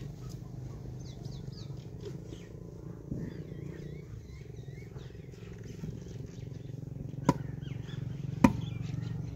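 An iron digging bar standing in a hole in the ground is struck twice on its top, two sharp knocks about a second apart near the end, driving it into the soil. Birds chirp over a steady low hum.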